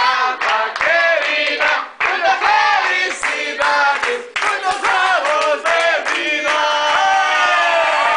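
A group singing a birthday song together, with hand clapping in time.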